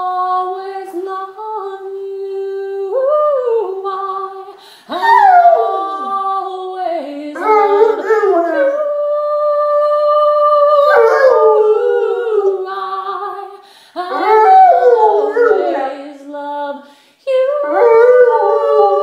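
Rottweiler howling in long, wavering drawn-out notes that slide up and down in pitch, several howls in a row with short breaks between them.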